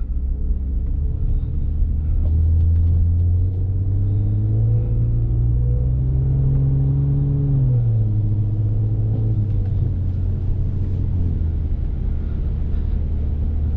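BMW F30 335i's turbocharged inline-six (N55) running under a steady low rumble, its note rising gradually for about seven seconds and then dropping sharply about eight seconds in before holding steady.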